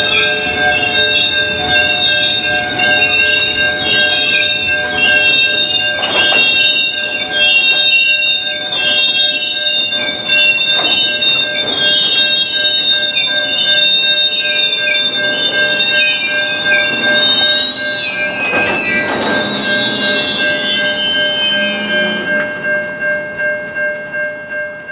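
Steel wheels of a slow-rolling freight train of tank cars squealing against the rails: several high, steady, slightly wavering squeal tones over the rumble of the passing cars. Near the end the squeal fades and gives way to a quick, even ticking.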